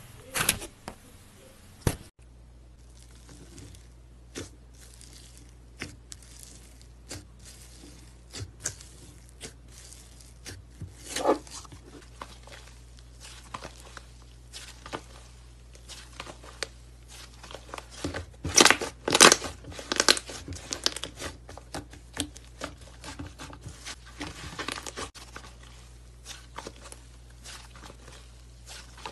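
Slime worked by hand: a crumbly white slime squeezed between the palms, then a thick pink slime stretched and folded, giving irregular crackling pops and soft tearing sounds. The pops come thickest and loudest in a run about two-thirds of the way through, over a faint steady low hum.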